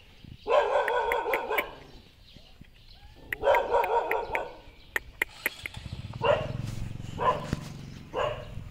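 Young dogs play-fighting and barking: two long, wavering yappy vocalisations of about a second each, then short barks about once a second over a low rumble.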